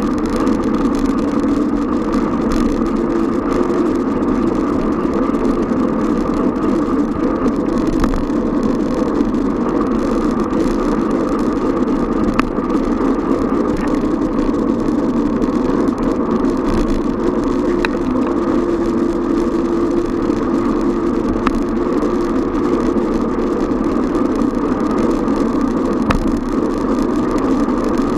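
Steady riding noise of a bicycle in city traffic, picked up by a camera on the bike: a constant dense rumble of road and passing-traffic noise, with a few faint clicks.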